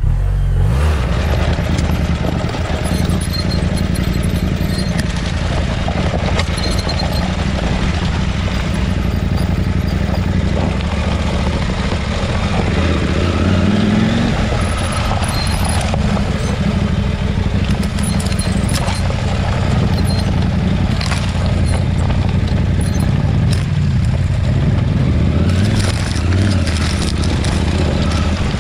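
Adventure motorcycle engine running steadily while being ridden.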